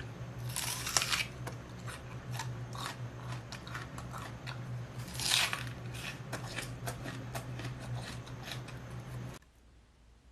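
Close-miked eating sounds: biting and chewing crunchy food, with many small crisp clicks and two louder crunches, over a steady low hum. The sound cuts off abruptly near the end.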